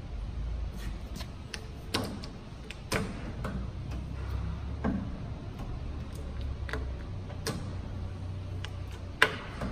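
Bridgeport Romi Tormax engine lathe's headstock speed-change lever being shifted through its positions, giving a string of irregular clicks and clunks as it drops into its detents, the loudest near the end, over the low steady hum of the running lathe.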